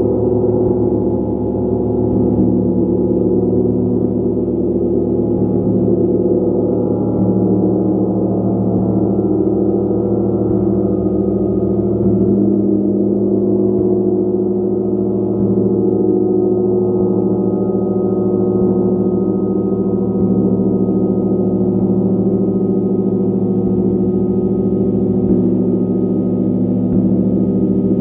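Large gong played continuously, a dense, steady wash of many overlapping ringing tones. The deeper tones swell and fade as the playing goes on.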